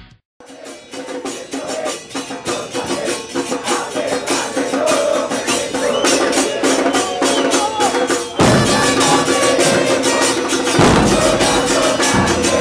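Supporters' murga band: drums beating a fast, steady rhythm under a melody. It gets louder about eight seconds in, when heavy bass drums join.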